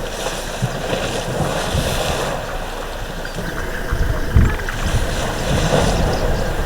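Water splashing as elephants bathe in a river, in two spells of splashing, with wind buffeting the microphone a little past the middle.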